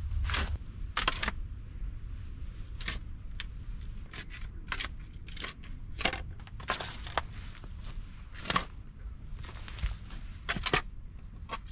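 Steel shovel digging into soft, loose earth: repeated irregular scrapes and crunches as the blade cuts in and the soil is lifted and thrown, about one every half second to a second.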